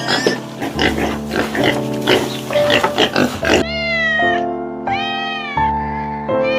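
Animal-like vocal sound effects over background music: a quick run of short choppy noises, then two long calls that rise and fall in pitch.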